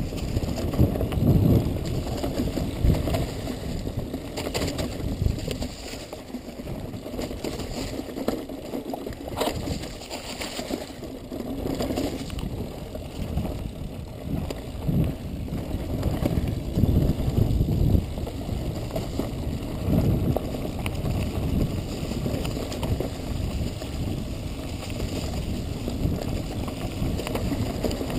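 Mountain bike descending a chunky dirt trail: wind buffeting the microphone, with tyre roar and scattered knocks and rattles from the bike over rough ground.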